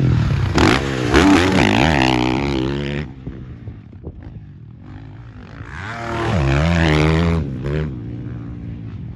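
Dirt bike engine revving on a motocross track, its pitch rising and falling as the rider opens and closes the throttle. It is loud for about three seconds, drops away, then revs up loud again past the middle.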